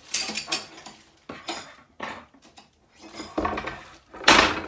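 Metal frame and poles of an animated Halloween prop clinking and knocking as they are handled, in a few separate knocks, with the loudest clank near the end as the frame is set down on a wooden floor.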